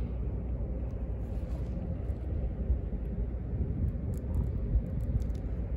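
Steady low rumble of outdoor background noise, with a faint steady hum through it.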